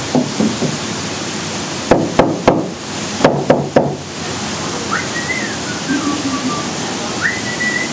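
Two quick runs of three hard knocks, about a second apart, over a steady rushing noise. Later a thin whistling tone slides up and down.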